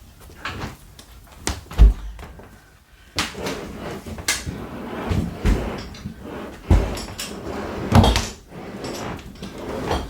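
Fridge freezer being walked out of its recess: several heavy thumps as it is rocked and set down, with scraping and rattling in between.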